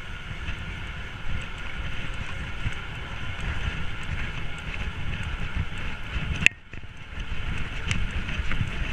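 Wind buffeting the microphone during a fast electric mountain bike ride, over the steady hum of the bike rolling along the road. A sharp click comes about six and a half seconds in, and the sound briefly drops away before it picks up again.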